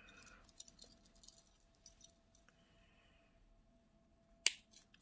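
Pliers snipping through single-strand Knot2Kinky leader wire with one sharp click near the end, after a few faint ticks from handling the wire and pliers.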